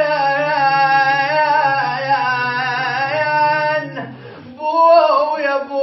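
A man singing a Shia lament for Imam Husayn without accompaniment, holding long wavering notes. About four seconds in he breaks off for a breath and then takes up the line again; a low steady hum under his voice stops just before the break.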